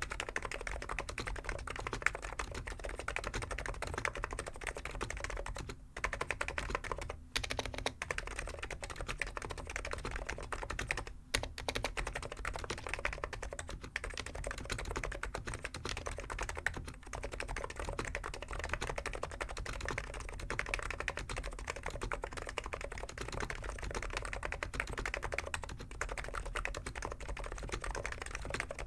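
Continuous typing on a Hansung GK893B keyboard with completely stock 50 g electro-capacitive (Topre-style) switches: a dense, even run of key presses, pausing briefly a few times.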